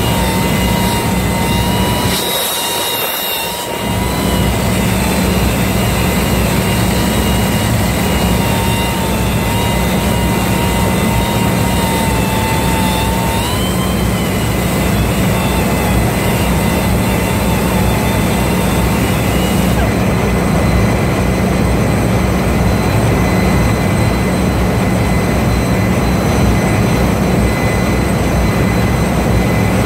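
Machinery running steadily and loudly, a dense drone with a low hum and a thin wavering whine that fades out about halfway through. The low rumble drops out briefly about two seconds in.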